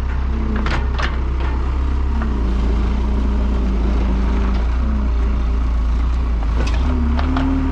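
Skid steer's engine running steadily with a low rumble, its pitch rising and falling as the loader works the bale up to the top row, with a few short knocks about a second in and near the end.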